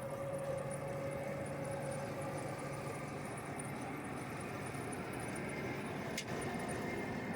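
1976 Allis-Chalmers Gleaner F combine running steadily, its mechanical drone carrying a few steady whining tones, with a single sharp click about six seconds in.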